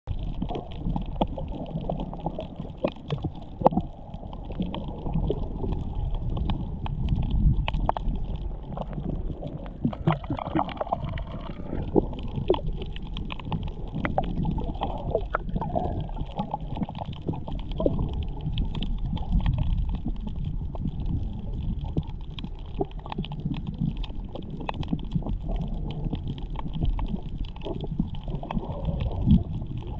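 Underwater ambience picked up by a submerged camera: a muffled low rumble of moving water with frequent scattered clicks and crackles.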